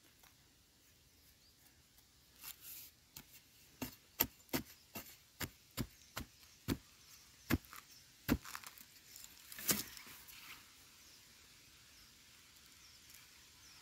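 A digging tool chopping and scraping into dry, crumbly soil around a wild yam tuber: short sharp strikes at about two a second, starting a couple of seconds in and stopping a few seconds before the end.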